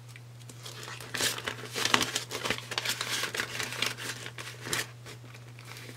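Clear plastic binder pouch crinkling and rustling, irregularly, as it is handled and paper banknotes are slid into it.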